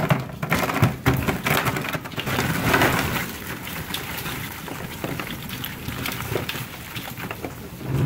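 Boiled crawfish, corn and potatoes sliding out of a perforated metal strainer basket into a plastic tub, the shells landing in a dense clatter of small clicks and thuds.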